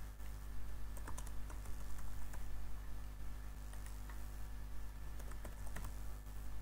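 Typing on a computer keyboard: a run of irregular key clicks over a steady low hum.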